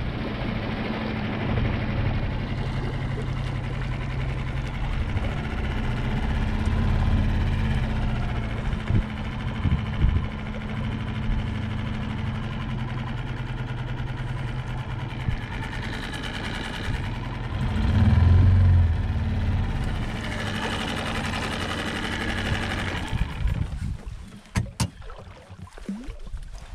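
Small boat motor running steadily on a lake, swelling briefly about two-thirds of the way through, then dying away near the end and leaving only a few light knocks.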